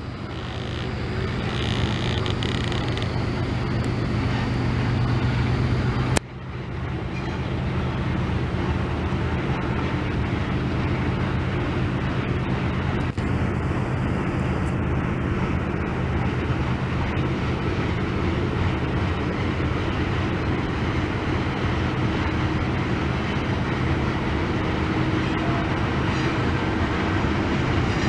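Train passing: a steady rumble with a low droning hum under it. The sound drops out sharply for a moment about six seconds in, then carries on the same.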